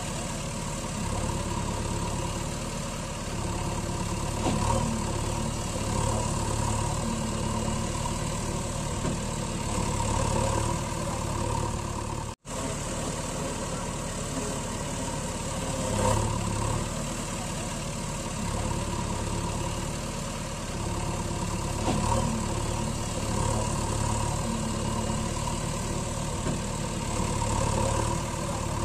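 Engine idling sound effect, steady, swelling in a repeating pattern about every six seconds as a loop does. It cuts out for an instant about twelve seconds in.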